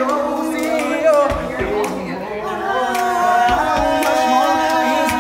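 Male vocal group singing a cappella, several voices holding close harmony chords, with a few low thumps underneath.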